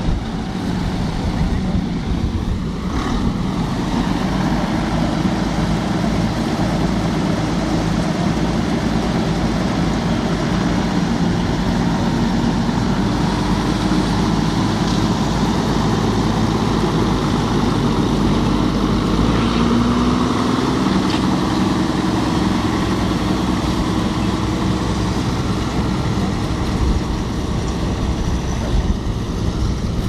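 Schlüter Super 1500 TVL tractor's diesel engine running steadily under load while pulling a plough through the ground; its pitch rises slightly a little past halfway.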